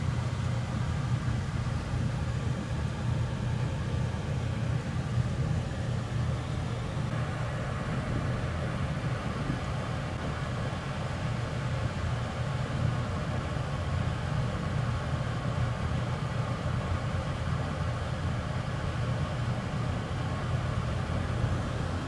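LG system air conditioner's outdoor unit running: a steady low mechanical hum with a light hiss over it, which gets a little stronger about seven seconds in.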